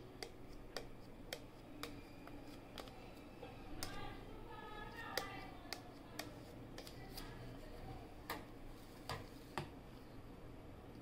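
Knife tapping and scraping against the rim and base of a metal pressure-cooker pan while cutting soft steamed kharvas into pieces. The result is light, irregular clicks, about one a second.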